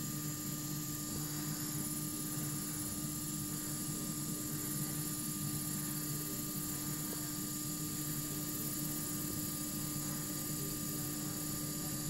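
Steady hiss and hum, with a few faint steady tones, from the blank opening of a VHS tape playing through a TV's speakers.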